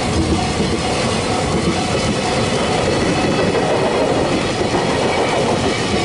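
Freight train's container flat wagons rolling past at speed, a steady loud rumble with wheels clacking over rail joints. A level crossing alarm rings repeatedly behind it.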